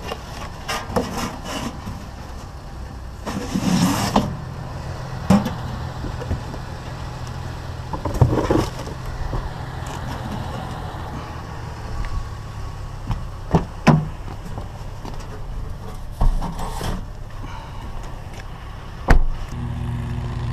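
A vehicle engine running steadily at idle, with scattered knocks and clattering bursts as scrap metal is handled and loaded.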